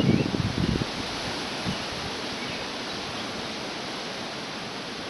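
A low rumble stops abruptly within the first second, leaving a steady outdoor hiss with a couple of faint bird chirps.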